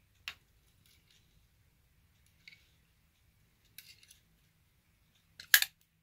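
Sharp metallic clicks of folding knives being handled. The loudest is a quick double snap near the end as the WIFAMA NW-69 automatic knife's spring-driven blade flies open and locks.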